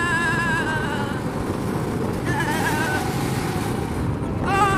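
Go-kart running at speed with a steady engine and wind rush, and tyres squealing in wavering screeches through the corners: once at the start, briefly about two and a half seconds in, and again near the end.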